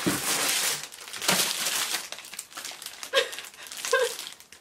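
Clear plastic packaging crinkling and rustling as a wrapped item is picked up and handled, in two spells, with two brief voice sounds near the end.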